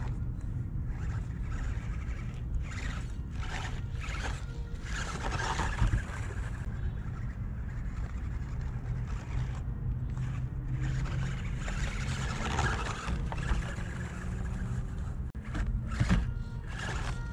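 A 1/24-scale RC crawler driving through garden plants: scraping and rustling as it pushes through the brush over a steady low rumble, with a knock about six seconds in and another near the end.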